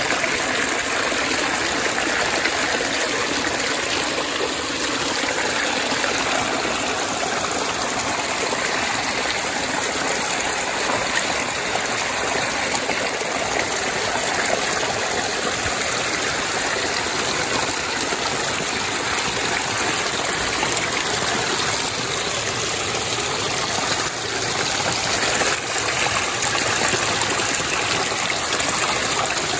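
Mountain-fed creek water running over its bed, a steady continuous rush.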